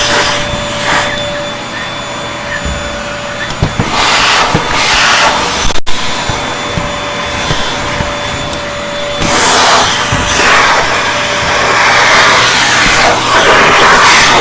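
Vacuum cleaner running under suction, a steady motor whine under a hiss that swells and eases several times; the sound drops out for an instant about six seconds in.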